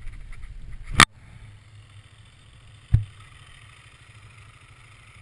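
Camera being handled with a gloved hand: rubbing for about a second, then a sharp knock, and a smaller knock near three seconds. Underneath, the low steady rumble of dirt bike engines idling.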